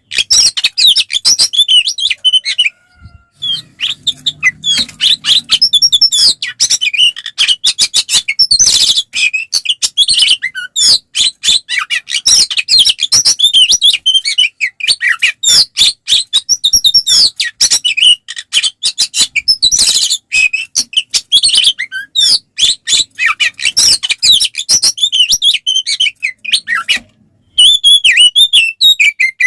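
Oriental magpie-robin (kacer) singing a loud, fast, unbroken run of varied whistles and chattering notes, pausing briefly about three seconds in and again near the end.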